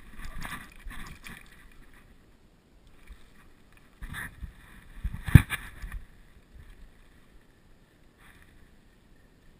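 Rustling and handling noise on a helmet-mounted camera as the player moves, with one sharp knock about five seconds in.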